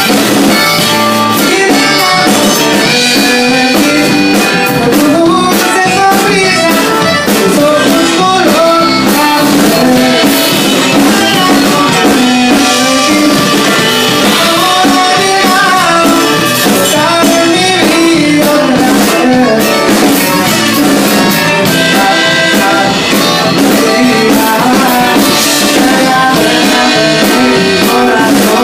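Live band playing a song at full volume through PA speakers, with accordion, electric guitar, drum kit and congas.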